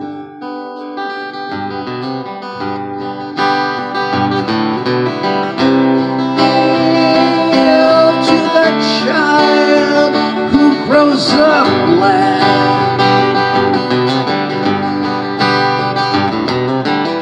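Acoustic guitar strummed solo in a live song, quiet for the first few seconds and fuller from about three and a half seconds in. A singing voice with sliding pitch comes in around the middle.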